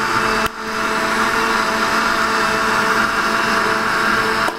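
Electric kitchen blender running steadily, blending dragon fruit with water and honey into juice. It dips briefly with a click about half a second in, then is switched off near the end.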